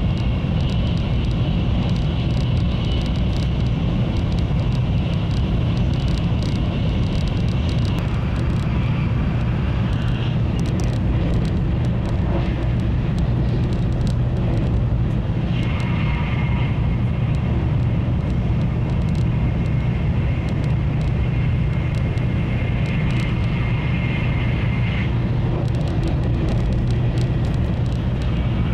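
Taiwan High Speed Rail 700T train running at speed, heard inside the passenger cabin: a steady low rumble with a higher whine that comes and goes, strongest for about ten seconds past the middle.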